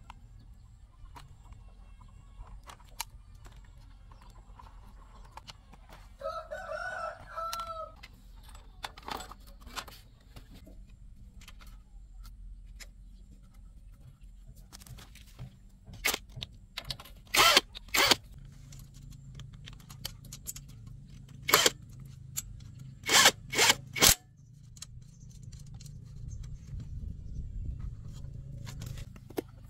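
A rooster crows once, about six seconds in, a single drawn-out call of nearly two seconds. Later come a handful of short, sharp, loud noise bursts, the loudest sounds here, in two clusters, over a low steady hum.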